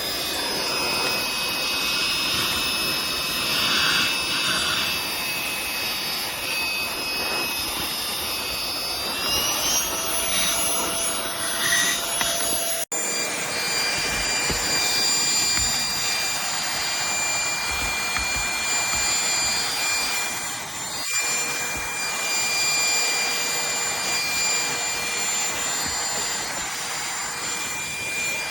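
Cordless handheld vacuum cleaner running with a steady high motor whine and rushing air. About ten seconds in, the whine climbs in pitch. It cuts out for an instant a few seconds later, then carries on steadily.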